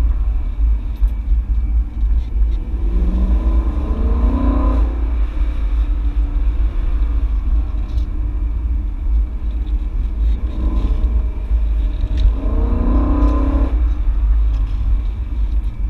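BMW E92 M3's V8 engine heard from inside the cabin over a steady low road rumble, rising in pitch as it accelerates twice, about three seconds in and again about eleven seconds in.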